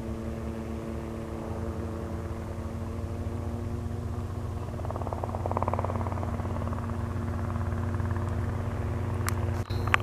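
Robinson R22 Beta piston helicopter on final approach during a practice autorotation (simulated engine failure): a steady, even hum that grows slightly louder as it comes in. A few short clicks near the end.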